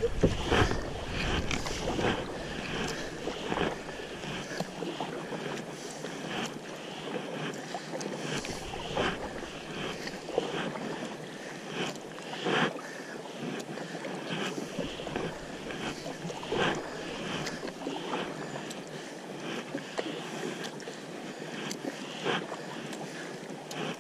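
River water splashing around a kayak, with short splashes of paddle strokes every second or two over a steady rush of water and some wind on the microphone.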